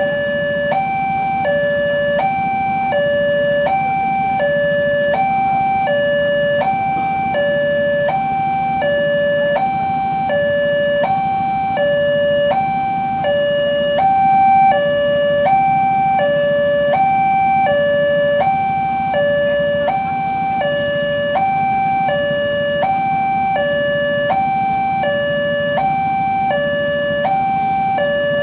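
Electronic two-tone warning alarm at an Indonesian railway level crossing, sounding continuously. A higher and a lower tone alternate evenly, about one high-low pair every 1.2 seconds, signalling that a train is approaching and the barriers are down. A low steady rumble lies underneath.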